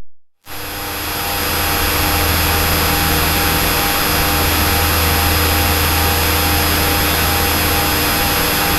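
Cessna's single-engine piston engine and propeller at full power, a steady drone with a low hum, heard inside the cockpit during the takeoff roll and climb-out. The sound cuts in after a brief dropout right at the start.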